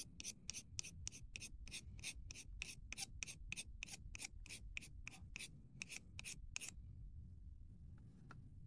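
A stick of black pastel chalk scraped against a craft knife blade to grind it into powder for weathering, in short, even strokes about four a second, which stop after about six and a half seconds.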